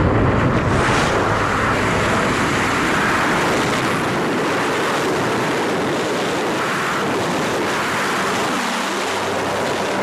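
Loud, steady rush of wind as air streams past a wingsuit flyer and the camera's microphone in high-speed flight.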